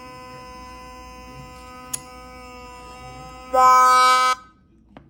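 Homemade 12-volt bicycle siren's small speaker giving a steady tone, with a sharp click about two seconds in. Then a loud harsh blast lasting under a second, after which it cuts out suddenly. The owner takes the fault for a cracked wire or a short circuit.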